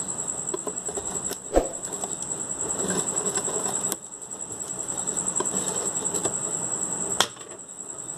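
Clear plastic cover of a quartz wall clock being prised loose around its rim: scraping handling noise with a few sharp plastic clicks, the loudest about a second and a half in and another near the end. A steady high-pitched whine sounds underneath throughout.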